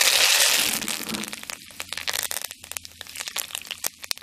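Green leaves dropped into hot oil in a clay pot: a loud sizzle at once, settling after about a second into sharp crackles and pops that thin out.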